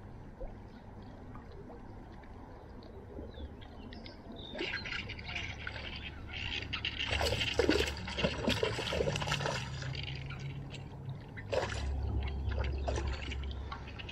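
A hooked fish splashing at the water's surface close to the bank as it is fought on a jig pole. The splashing starts about four seconds in, comes in irregular bursts for several seconds, and dies down, followed by a few light knocks.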